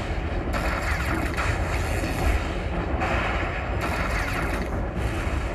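Buffalo Lightning Link slot machine's game sounds: electronic effects with sliding pitch that start and stop in blocks of about a second, over a steady deep rumble.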